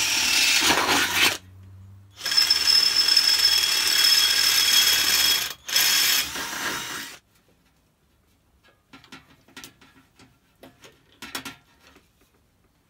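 Cordless drill boring through thin sheet metal of a chimney cowl and its bracket, in three runs over the first seven seconds, with a steady high squeal from the bit as it cuts. After that come only scattered light clicks and taps of metal parts being handled.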